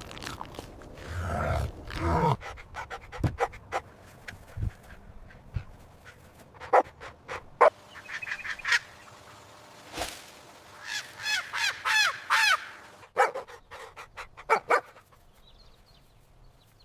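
A string of short recorded animal calls, mostly dog barks, with a quick run of high, pitched calls in the second half.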